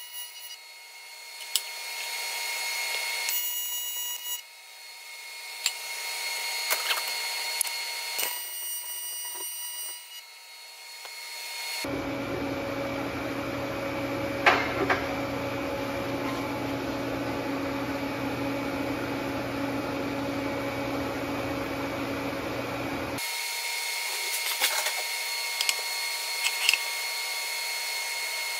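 TIG welding arc on aluminum, buzzing in several short stitches that swell and fade. About halfway through, a steadier, lower hum takes over for roughly eleven seconds, then the higher buzz returns with a few sharp clicks near the end.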